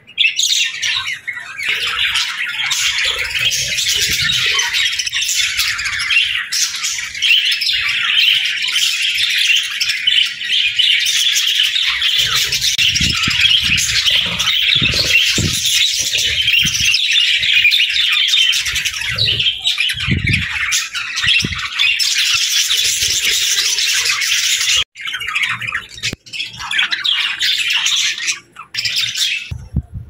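A flock of budgerigars chattering and warbling without a break, a dense mix of chirps and squawks, with a few low thumps in the middle.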